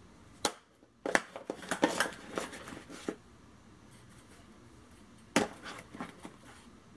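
Small cardboard boxes of .22 Long Rifle cartridges being set and shuffled into a packed bag: a run of knocks and rattles between about one and three seconds in, then another sharp knock a little past five seconds with a few lighter ones after.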